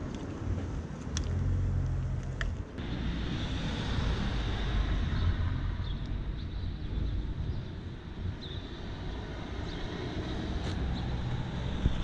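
Passing road traffic: a low rumble of car engines and tyres that swells and eases, with wind buffeting the microphone and a few sharp clicks.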